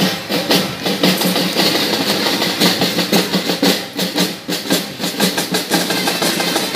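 Marching drum band playing snare and bass drums, a fast, dense beat of many strikes.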